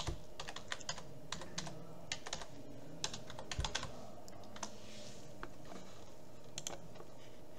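Typing on a computer keyboard: a quick run of keystrokes for about the first four seconds, then a few scattered clicks near the end.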